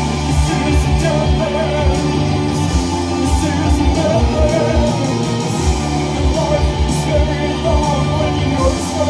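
Live post-punk band: a woman singing over electric guitar, bass and keyboard, with a steady beat.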